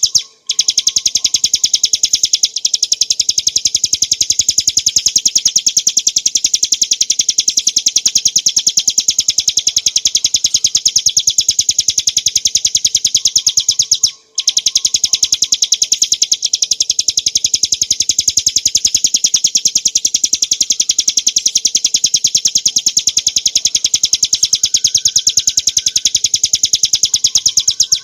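Ciblek gunung, a small prinia, singing a loud, fast trill of high, sharp repeated notes that runs on almost without a break. It stops briefly about half a second in and again about fourteen seconds in.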